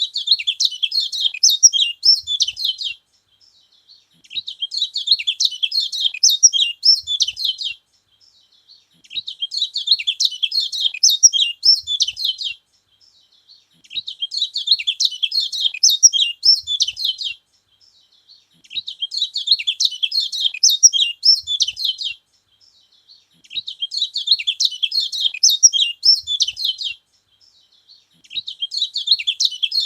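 Kecial kuning (yellow white-eye) singing: a rapid, high twittering phrase about three seconds long, repeated at an even pace with short pauses between.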